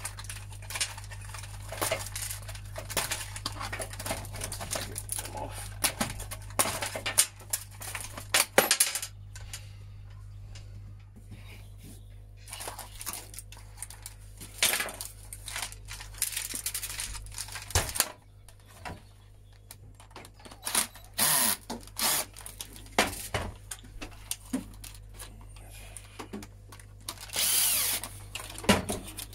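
Plastic casing parts and a circuit board being handled and pried apart, with many clicks and rattles. Short runs of a cordless drill-driver backing out screws come in now and then, the longest lasting about a second near the end.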